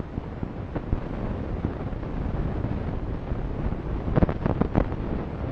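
Wind buffeting the camera microphone with a steady low rumble, and a brief cluster of short sharp sounds about four seconds in.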